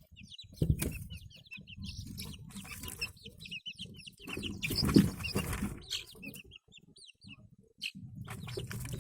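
Young chicks peeping: many short, high, repeated peeps, over a low rustling noise that is loudest about halfway through.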